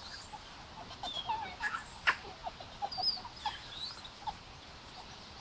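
Golden snub-nosed monkeys giving scattered short chirps and squeaks, some wavering in pitch, with a single sharp click about two seconds in.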